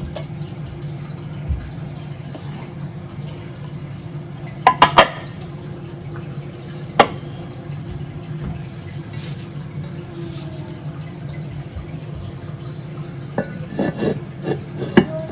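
Sharp clinks of kitchenware: a quick triple click about five seconds in and a single one at seven, then a cluster of knocks near the end as the enamelled cast-iron lid of a Staub oval cocotte is set down on the pot. A steady low hum runs underneath.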